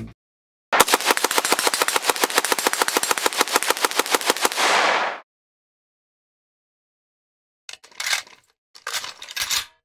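AN-94 assault rifle firing one long full-auto burst of about ten shots a second for some four seconds, then stopping abruptly. Near the end, two short bursts of metallic clicking and clacking as the magazine is changed.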